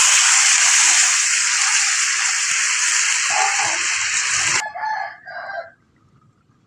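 Hot water poured into a kadai of fried chicken and potatoes, sizzling loudly as it hits the hot pan, then cut off suddenly about four and a half seconds in. A few short animal calls follow.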